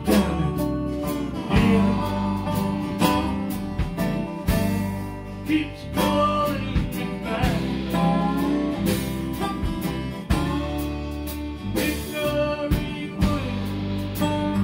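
Live acoustic band music: two acoustic guitars strummed and picked, with a lap steel guitar playing gliding, sliding notes over them.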